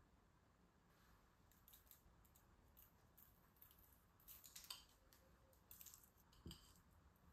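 Faint crackly rustling and ticking of fingers pinching crushed Biscoff biscuit crumbs and sprinkling them onto parchment paper, with one soft knock near the end.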